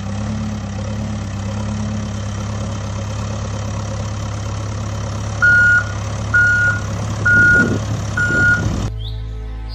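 Heavy-vehicle engine sound effect running steadily, dubbed over a toy backhoe loader. A little past halfway come four reversing beeps about a second apart.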